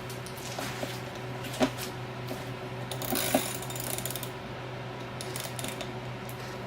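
Scattered light metallic clinks and knocks of hand tools and exhaust parts being handled, the sharpest about one and a half seconds and three seconds in, over a steady low hum.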